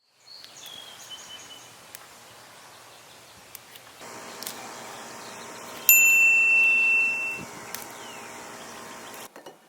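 A single high bell-like chime that holds for about a second and a half, over a faint hum.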